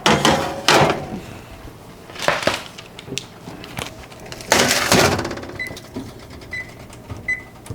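Kitchen clatter: several sharp knocks and scrapes of handling baking things. Near the end come a few short electronic beeps about a second apart, like an appliance timer.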